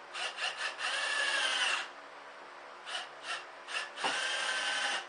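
Cordless drill driving screws into plywood, twice: a few short trigger blips, then a steady run of about a second with a motor whine that sags in pitch as the screw bites.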